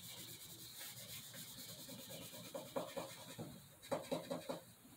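A small folded pad rubbing walnut oil into a sanded spot on a wooden tabletop: quick, even back-and-forth scrubbing strokes. About three to four seconds in come a few louder clicks and crackles.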